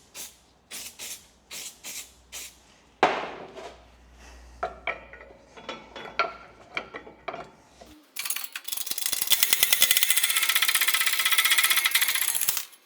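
Metal tools clinking and knocking as the removal tool is fitted. Then, from about eight seconds in, a power tool such as an impact wrench hammers steadily for nearly five seconds, driving the improvised puller to press the old bush out of the toe arm.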